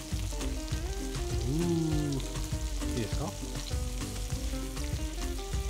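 Beef tongue steaks sizzling in sesame oil in a frying pan while they are turned over with metal tongs, with a few small clicks from the tongs.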